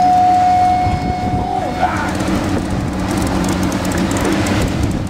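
Boat engine running under way, with wind and water rushing along the hull. A steady high whistle-like tone sounds over it for about the first two seconds, then dips and cuts off.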